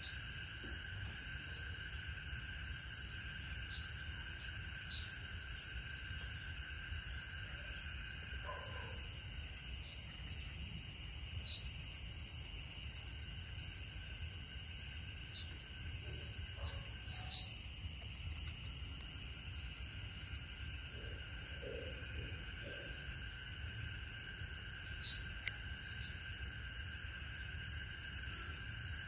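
Night insect chorus, crickets and similar insects trilling steadily at several high pitches with a fast even pulsing. A few sharp clicks stand out now and then.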